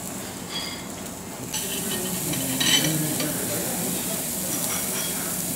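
Beef slices sizzling on the wire mesh of a tabletop charcoal yakiniku grill, a steady frying hiss that jumps louder about a second and a half in.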